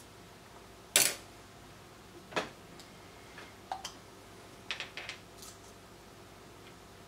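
Small objects handled on a workbench: a sharp knock about a second in, then several lighter clicks and taps as a coil of solder wire and a small plastic cap are picked up and set down on a cutting mat.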